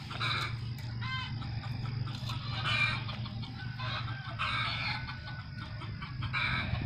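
Domestic chickens clucking in short repeated calls over a steady low hum.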